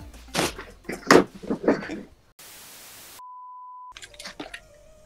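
A few short noisy bursts, then a burst of TV-static hiss followed by a single steady high beep, which stops sharply. The static and beep are an edited transition effect marking a cut in the video.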